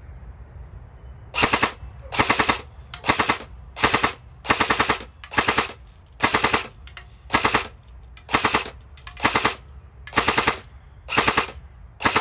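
Snow Wolf Barrett M107 Gen 2 airsoft electric gun (AEG) firing short full-auto bursts, roughly one burst a second starting about a second and a half in. Each burst is a quick rattle of several shots as the electric gearbox cycles.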